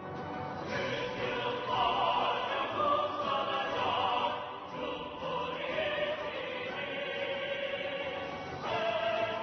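Background music with a choir singing long held notes, swelling about a second in and starting a new phrase near the end.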